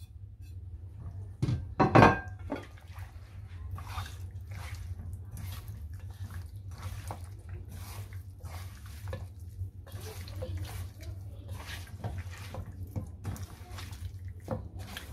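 Hands squishing and kneading raw chicken pieces with spice powders and ginger-garlic paste in a steel bowl: irregular wet, sticky strokes as the marinade is mixed in. About two seconds in, a loud ringing knock as the spice plate strikes the steel bowl.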